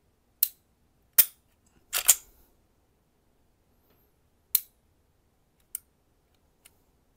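Sharp mechanical clicks from a Glock-pattern PSA Dagger pistol as its controls are worked: three loud clicks in the first two seconds, the last one doubled, then a single one about four and a half seconds in and two fainter ones near the end.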